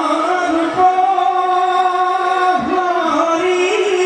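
Bhaona song: a single voice sings long held notes that bend slowly up and down, with a few soft low thuds beneath it.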